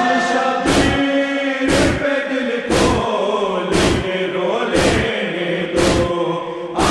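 A chorus of mourners' voices holding a nauha chant, over matam: hands striking chests in unison at a steady beat of about one stroke a second.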